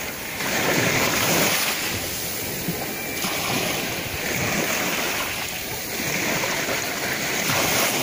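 Small Black Sea waves washing in and out at the shoreline right by the microphone: a continuous rush that swells and eases every few seconds.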